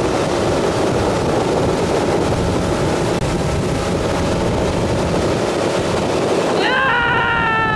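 Centurion Ri230 wakeboard boat under way: a steady rush of engine, churning wake and wind buffeting the microphone. Near the end, a long drawn-out shout with falling pitch.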